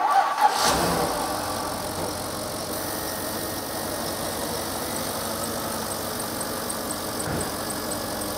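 Porsche Cayenne Turbo's twin-turbo 4.5-litre V8 just started from cold: a brief flare of revs in the first second, then it settles into a steady cold idle. It runs slightly unevenly with a faint little ticking, which the mechanic judges normal for this engine.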